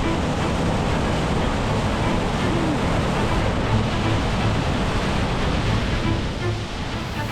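Steady roar of a waterfall at close range, water crashing down without a break, with background music underneath.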